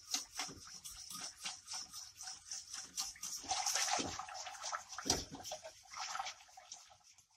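A wire whisk stirring thin béchamel sauce in a stainless steel pot, in the early stage just after the milk has been whisked into the butter-and-flour roux. The liquid sloshes, and the whisk's wires clatter against the pot in repeated light clicks.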